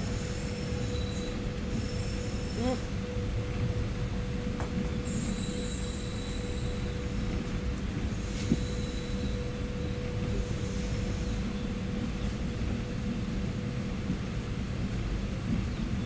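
Passenger train running on the track: a steady low rumble of coach wheels with a constant hum. Short bursts of high hiss come four times, and there is a single sharp click about eight and a half seconds in.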